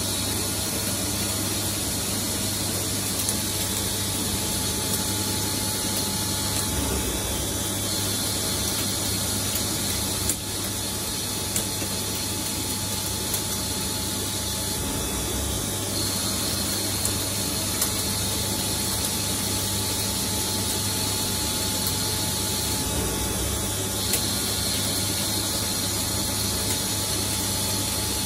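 CNC lathe running while turning steel, a steady machine hum with an even hiss and a few faint ticks. A slight change in tone recurs about every eight seconds.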